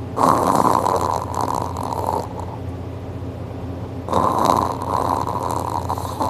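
A man snoring loudly in deep sleep: two long snores about four seconds apart, each lasting about two seconds, with quieter breathing between them.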